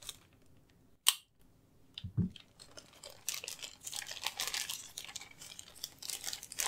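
Scissors cutting open a plastic poly mailer, with a sharp click about a second in and a short dull thud around two seconds. From about three seconds on the plastic mailer crinkles and rustles as it is handled.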